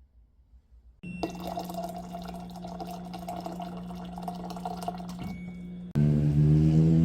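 Water running or pouring over a steady hum for several seconds. About six seconds in, a louder motor-like hum starts.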